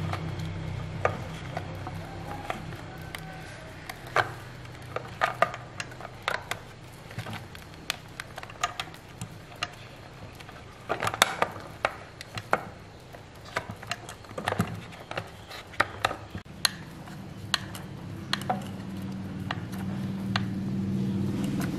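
Scattered small clicks and taps of hard plastic chainsaw housing, wires and rubber hoses being handled and pushed into place, over a low engine hum that fades early on and grows again near the end.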